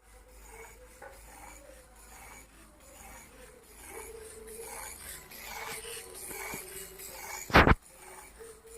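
3D-printed kinetic butterfly sculpture's wing mechanism running, its printed parts rubbing and scraping in a repeating rhythm. A single loud thump comes about seven and a half seconds in.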